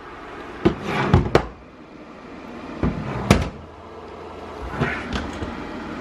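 Plastic housing of a small ceramic space heater knocking against a table as it is handled and tipped, a few knocks about a second in and a sharper one about three seconds in. Under it the heater's fan keeps blowing steadily, running on to cool down after the tip-over switch has cut the heat.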